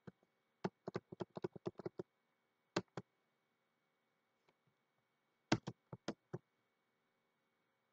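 Faint keystrokes on a computer keyboard: a quick run of about nine keys, two more about a second later, then another short run near the end.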